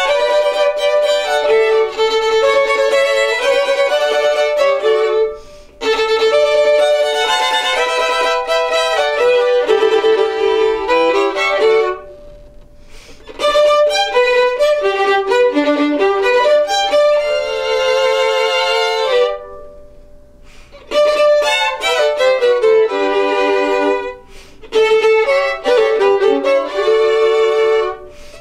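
Three violins playing together as a bowed trio, in phrases broken by short pauses, with vibrato on some held notes.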